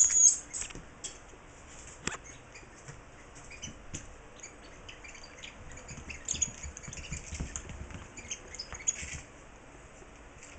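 A French Bulldog puppy playing with plush toys: a loud high-pitched squeak at the very start, then a run of short, softer squeaks and light rustling and tapping, busiest about six to nine seconds in.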